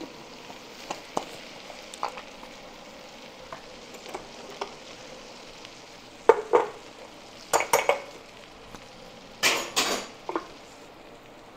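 Fritters deep-frying in hot oil with a steady sizzle, while a metal utensil stirs and knocks against the pan a number of times. The knocks come thickest from about halfway in.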